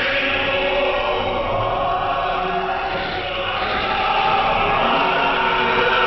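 Choral music, a choir singing sustained lines with accompaniment, heard through a shortwave receiver with narrow bandwidth and digital noise reduction, so it sounds thin and lacks top end.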